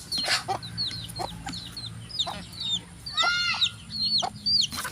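Chickens clucking and peeping: a run of short, high, falling peeps, with a longer, fuller call about three seconds in and a few light clicks.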